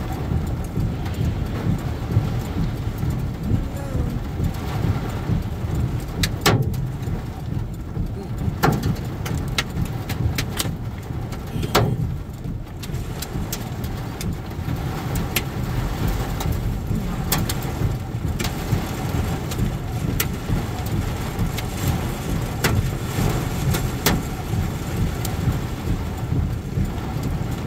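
Heavy rain on a stopped car, heard from inside the cabin: a steady low rumble with irregular sharp taps of drops striking the roof and windshield.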